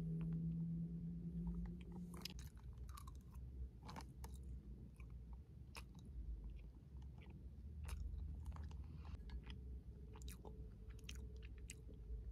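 A person chewing food close to the microphone, with soft irregular clicks and crunches; the food is riced cauliflower with vegan tuna. A low steady hum with a few overtones stops about two seconds in.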